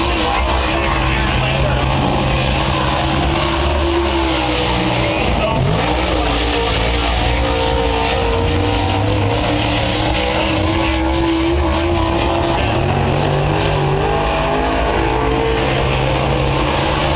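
Dirt late model race car engine running hard, its pitch rising and falling as the car is driven around the dirt oval.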